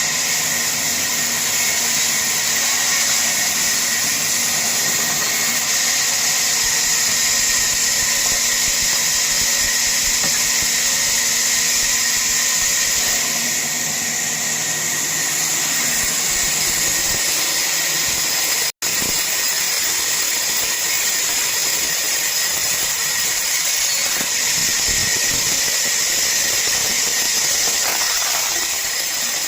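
Power woodworking machine running while cutting wood: a steady, loud high whine and hiss, broken by a split-second gap about two-thirds of the way through.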